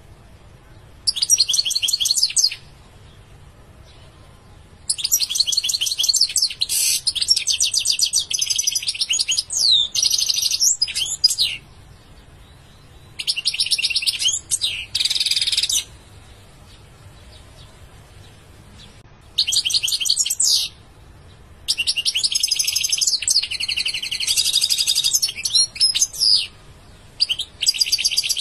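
European goldfinch singing: about six phrases of rapid twittering trills and buzzy notes, broken by pauses of a few seconds.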